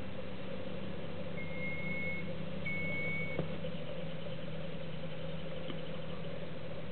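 Steady low background hum, with two short, even high-pitched beeps about one and a half seconds in and again a second later, then a faint click.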